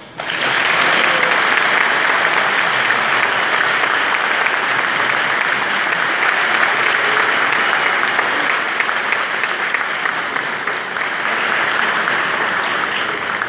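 An audience applauding: dense clapping that starts suddenly and holds steady, easing off near the end.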